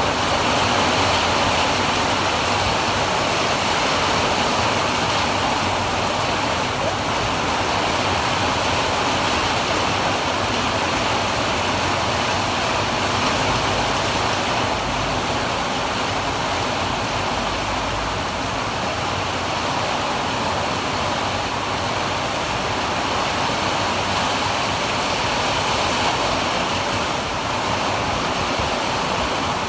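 Heavy rain from a passing storm pouring down steadily, a dense, even hiss of rainfall.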